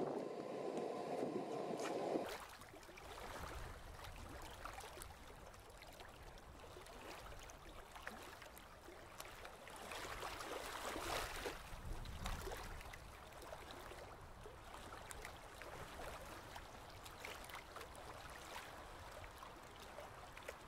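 A propane forge burner runs with a steady rush, which cuts off abruptly about two seconds in. After that there is a quieter, even watery hiss and gurgling over a low rumble, with scattered faint clicks.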